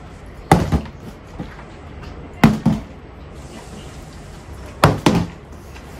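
A plastic soft-drink bottle being flipped and landing on a tabletop three times. Each landing is a thud followed quickly by a second knock as the bottle fails to stay upright.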